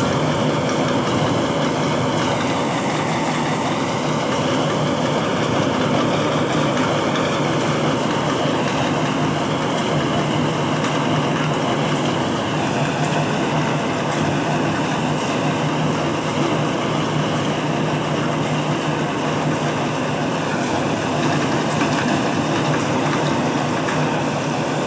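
Tractor diesel engine running steadily under load as it drives a mounted crop reaper through a field, with a constant low hum and a higher mechanical whine from the machinery.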